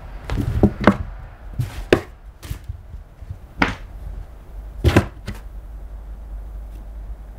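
A cat batting and pawing at a cardboard box, its paws and body knocking against the cardboard in a string of irregular thuds and knocks over the first five seconds or so.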